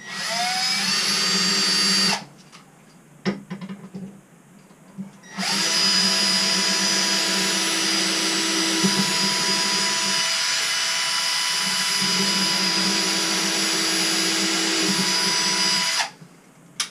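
Cordless drill boring pilot holes into wood through a metal bracket. A run of about two seconds that spins up at the start, a few small clicks, then a long steady run of about ten seconds that cuts off near the end.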